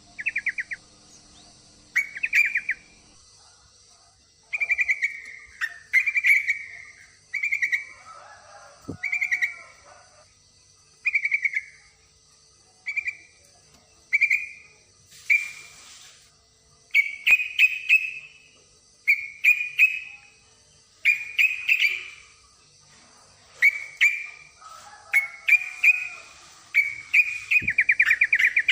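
Yellow-vented bulbul (trucukan) calling: short, bright chattering phrases repeated about once every one to two seconds, the call of a female in breeding condition calling for a male. A fainter, lower bird call comes in twice.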